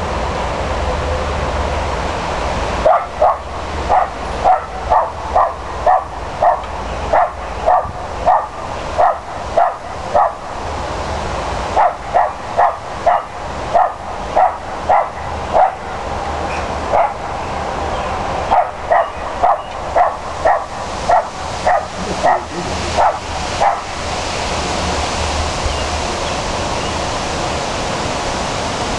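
A West Highland White Terrier barking repeatedly at deer it cannot reach, high yappy barks about two a second in three long runs with short pauses between them.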